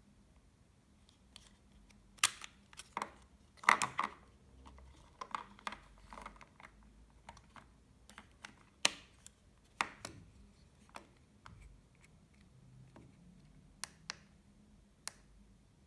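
Irregular light clicks and knocks from small hard objects being handled. The loudest cluster comes around four seconds in, and the clicks grow sparse near the end.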